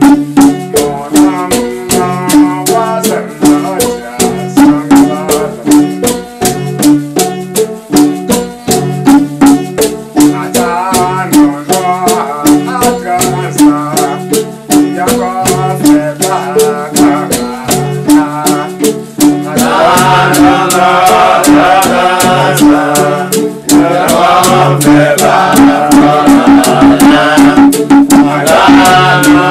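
Music driven by a rattle keeping a steady fast beat over a short repeating melodic line. Singing voices come in fuller and louder about two-thirds of the way through.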